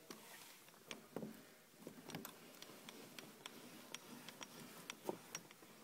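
Faint, irregular clicks and light ticks, about three a second, with a couple of slightly stronger knocks.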